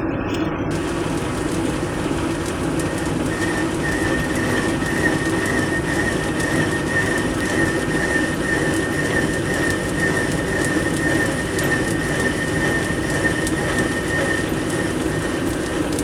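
Metal lathe running while a chamfering tool works a steel bar. A steady high squeal from the cut sets in about three seconds in and stops near the end.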